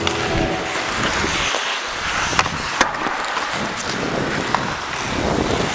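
Ice skate blades scraping and gliding over the rink ice, with a steady rush of air on the microphone and a few sharp clacks of hockey sticks and puck.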